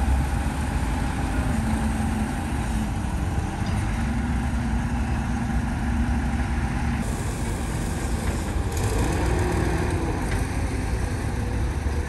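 Heavy diesel engine idling steadily with a low hum; a brighter hiss joins about seven seconds in.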